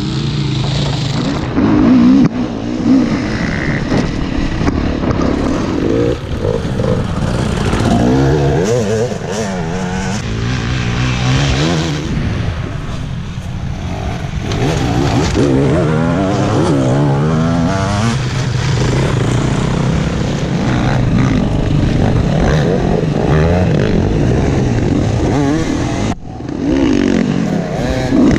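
Enduro dirt bike engines revving up and down under load as the bikes clamber over logs and through mud, with several bikes running at once in places.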